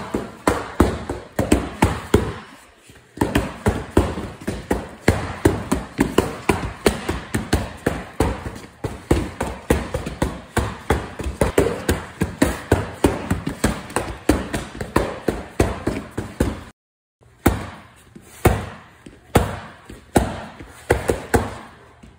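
Gloved punches smacking into handheld vinyl strike pads in fast combinations, several sharp hits a second. There is a short pause about two and a half seconds in, and the sound cuts out for a split second late on.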